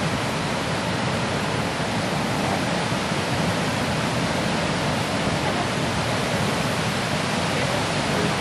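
Fast river water rushing steadily as the Torne River breaks up in spring, carrying broken ice.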